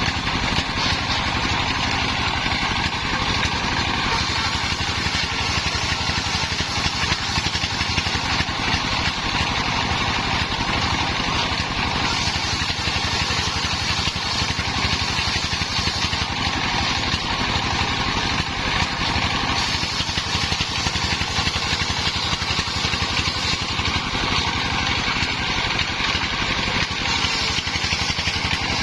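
Engine-driven circular saw bench running steadily while ripping timber into battens: a constant engine drone under the noise of the blade cutting through wood.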